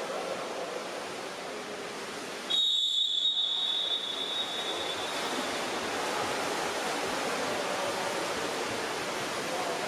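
A referee's whistle gives one long, shrill blast about two and a half seconds in. The blast is the loudest sound here and dies away over the next couple of seconds, above a steady hiss of pool-hall noise.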